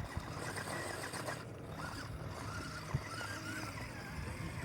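Radio-controlled rock crawler's small electric motor whining, its pitch wavering up and down over a low rumbling noise.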